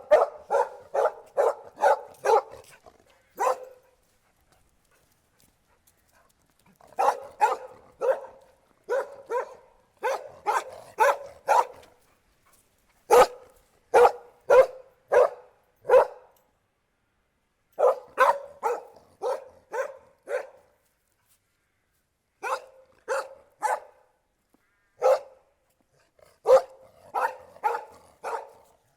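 A dog barking in quick runs of several barks about three a second, with pauses of a second or more between the runs.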